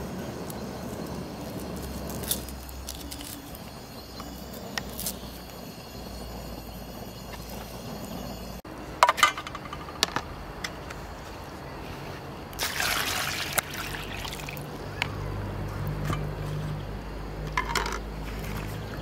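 Handling of cored green bell peppers and peeled onions in a plastic bowl. A few sharp knocks come about halfway through, then water is poured over the vegetables for about a second and a half, followed by wet handling as hands move them about in the bowl.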